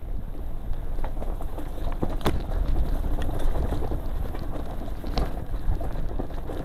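Downhill mountain bike rolling fast over a rocky dirt trail: tyres crunching on loose rock and the bike rattling, with a steady rumble and scattered clicks and knocks, two of them sharper about two and five seconds in.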